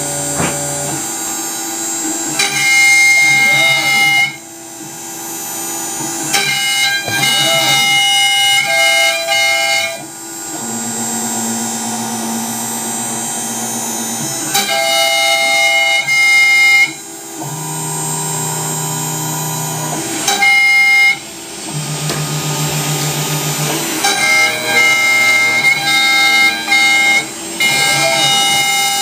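CNC router carving a wooden sign: its stepper motors whine in held tones that change pitch every second or two as the axes change speed and direction, over the hiss of the spindle cutting.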